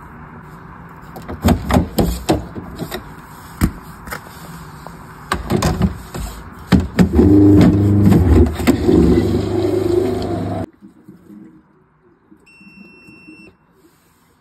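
Plastic clicks and knocks as the CF filter cartridge of a Waterdrop G3P600 reverse-osmosis unit is twisted out and a new one locked in, over a steady hum that grows loud for a few seconds near the middle. After a sudden drop in level, the unit gives one short electronic beep.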